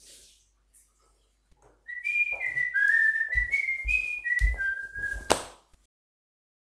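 A person whistling a short tune of about ten quick notes that step up and down in pitch, ending with a sharp click.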